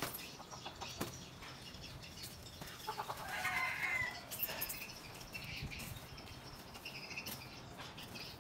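Rustling and knocking as white foam boxes are lifted and handled, with a short high squeak about three seconds in.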